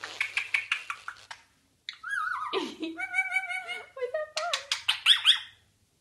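A quick run of kissing smacks, then, after a short pause, an Indian ringneck parakeet chattering in a high, squeaky talking-bird voice with gliding pitch.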